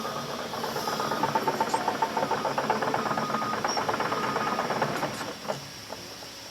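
Heavy diesel engine running with a fast, even clatter, dropping away about five seconds in.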